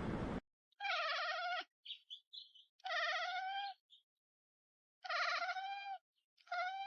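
A cat meowing four times in long, high, wavering meows, with a few faint chirps between the first two. A burst of noise cuts off suddenly at the very start.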